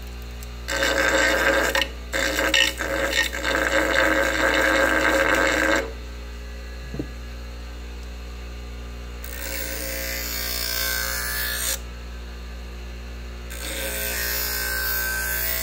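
Ryobi bench grinder running with a steady hum, spinning a plywood disc loaded with white polishing compound. About a second in, a bar of compound is pressed against the turning disc for about five seconds with a loud, rough grinding. Later a knife edge is held to the disc twice, giving a higher-pitched scraping each time.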